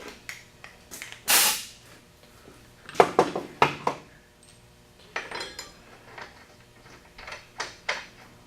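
Metal clinks and clatters as a steel mower blade and its mounting hardware are handled and fitted back onto the deck spindle. There is a short scraping rush about a second in, then a quick run of knocks, then lighter ticks.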